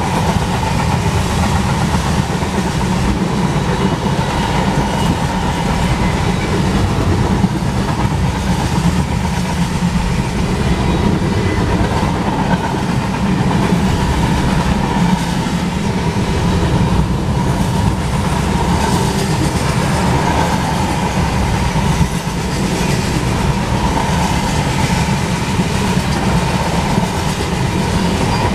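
Freight cars of a long mixed freight train rolling past close by: a loud, steady rumble and clatter of steel wheels on the rails.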